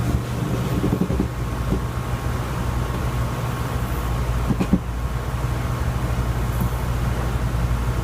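A Maltese dog breathing noisily, two short breaths about a second in and near the middle, over a steady low hum.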